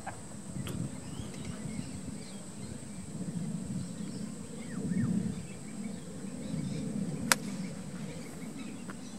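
Golf club striking the ball on a full fairway shot, a sharp click about a second in, over a low steady rumble with a few bird chirps. Near the end comes a second, louder sharp click.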